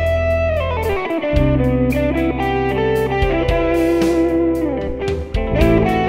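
Instrumental break in a song: electric guitar lead over bass and drums, with a note that slides down in pitch about a second in.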